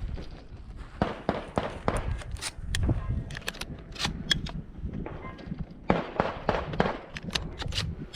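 Gunfire on a shooting stage: an irregular string of sharp cracks and clatters, several of them close together.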